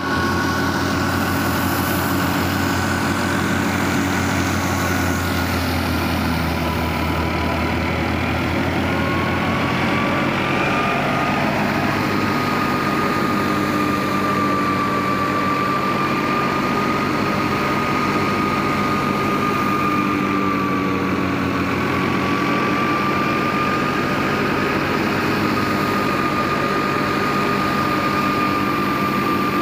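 Tractor-driven wheat thresher running steadily: a constant engine drone under a high, slightly wavering whine from the threshing machine.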